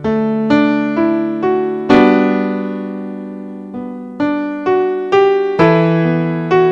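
Slow piano music: single struck notes and fuller chords, about two a second with a pause after a chord near two seconds in, each note ringing out and fading.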